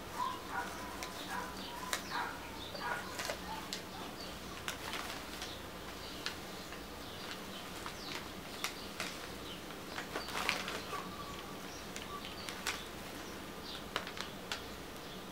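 White cloth snake bag rustling and crinkling as it is unwrapped and handled, with many scattered light clicks and taps and a louder burst of handling about ten seconds in.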